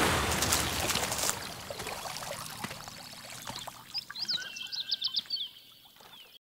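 A sudden loud rush and splash of water that fades over a second or so into a softer trickling hiss. About four seconds in comes a quick run of high chirps, and the sound cuts off abruptly near the end.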